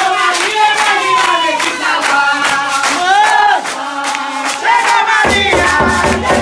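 A group of people singing a chant together while clapping their hands in a steady rhythm. About five seconds in, the sound changes abruptly as a low, pulsing beat joins in.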